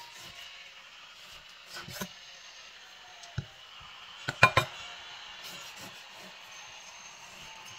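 A few sharp knocks and clinks over faint room noise, the loudest a quick cluster of two or three about four and a half seconds in, with a short ring.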